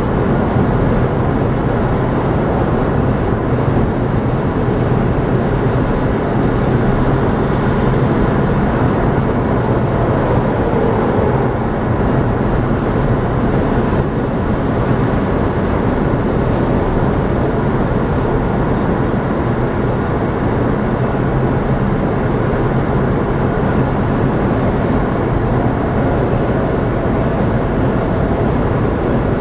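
Steady road noise of a car cruising at highway speed, heard from inside the car: tyre rumble on the pavement and a low, even engine hum.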